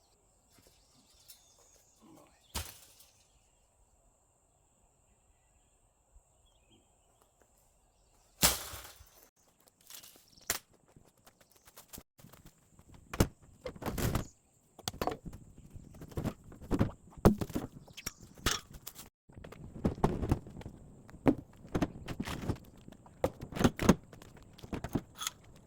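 Footsteps and irregular knocks and clunks outdoors. The first several seconds are nearly quiet apart from a single knock, then a loud thump about eight seconds in, after which steps and knocks come thick and uneven.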